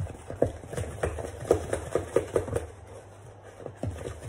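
Wooden spoon knocking and scraping in a clear plastic mixing bowl of cake batter. It makes a run of quick strokes that thins out after about two and a half seconds.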